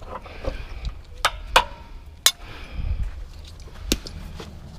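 Four sharp metallic clinks with a short ring, about a second in, at a second and a half, near the middle and near the end: loose metal scrap parts knocking together as they are handled.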